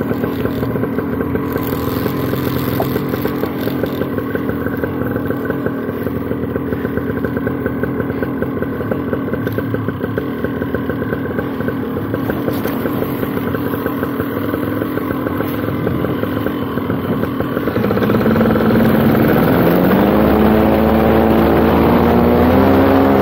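Paramotor engine and propeller running at a steady low throttle, then opened up about three-quarters of the way through, its pitch climbing steadily as power builds for the launch run.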